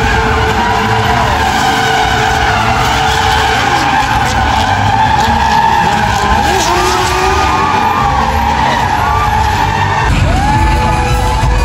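Stunt cars drifting in tight circles, engines revving and tyres squealing and skidding on a wet surface, with stunt motorcycles running among them.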